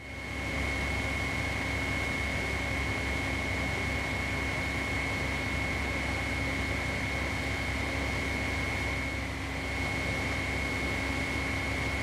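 Water rushing steadily over a river waterfall, mixed with the constant hum of a running machine that carries a steady high-pitched whine and a lower drone.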